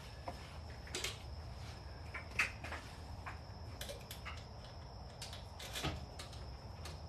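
Light knocks and clatter of items being handled and set down on a workbench, a scattering of short sharp knocks with the loudest about two and a half seconds in.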